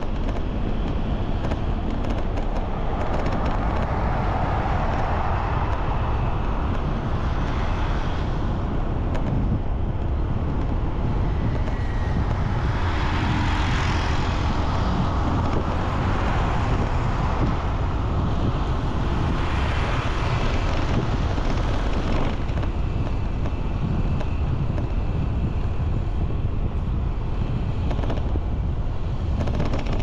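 Outdoor road noise with wind rumbling steadily on the microphone; vehicles pass, swelling and fading about three times.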